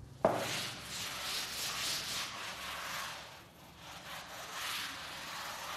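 Chalkboard duster being rubbed back and forth across a chalkboard, erasing chalk writing in repeated scratchy swishes. It begins with a sharp tap, and there is a brief pause in the middle.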